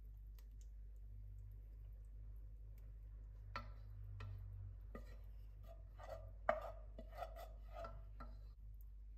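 Wooden spoon scraping and knocking against a saucepan as thick sauce is scraped out into a glass baking dish. A run of light knocks and scrapes starts about three and a half seconds in, the loudest knock coming near the middle.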